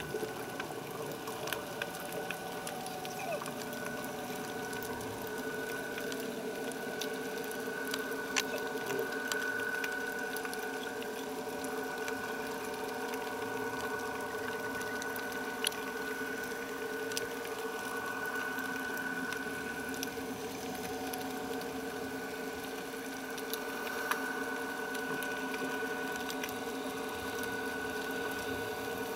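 Diver propulsion scooter's motor running steadily underwater, a whine of several held tones over a light hiss, with scattered faint clicks.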